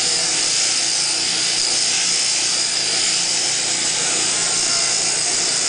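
Electric sheep-shearing handpiece running steadily, its comb and cutter buzzing through the fleece as the wool is clipped off.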